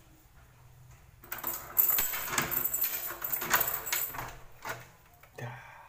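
A door being worked open: a few seconds of clicking and rattling from its lever handle, lock and latch, then a single dull knock near the end.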